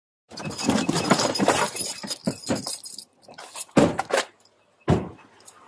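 Loud rustling and jangling of an officer's clothing and gear rubbing against a body-worn camera, full of small clicks, with two heavy thumps about four and five seconds in.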